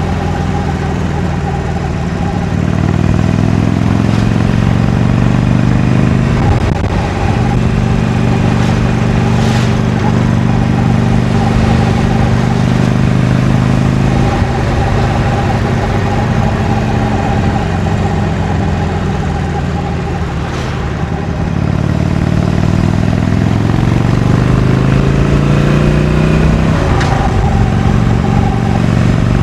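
Harley-Davidson Iron 883's air-cooled V-twin on its stock exhaust, heard from the rider's seat while under way. The engine note climbs and drops suddenly as it shifts up about six and a half seconds in, holds a steady cruise, falls back around fourteen and twenty seconds, then climbs again and shifts near the end.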